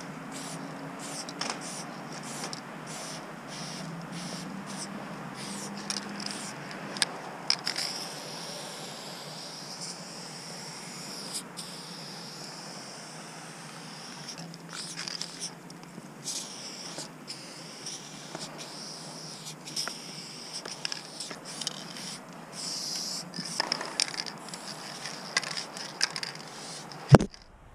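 Aerosol spray paint can hissing in long passes with short breaks between them, with a few sharp clicks, the loudest near the end.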